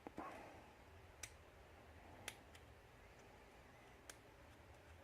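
Faint, sparse clicks and a short scrape of metal parts as a padlock is worked apart to remove its core clip. There is a brief scrape right at the start, then single clicks about a second in, a little after two seconds and about four seconds in.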